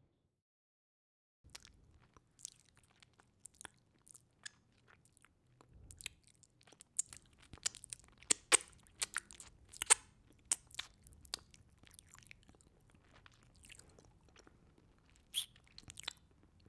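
Cotton candy machine running: a low motor hum under irregular sharp crackling clicks as sugar heats in the spinning head. It begins after about a second and a half of silence, and the crackling is thickest around the middle.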